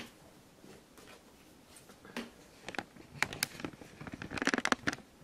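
A deck of tarot cards being shuffled by hand: scattered crisp card clicks and rustles that thicken into a quick run of flutters near the end.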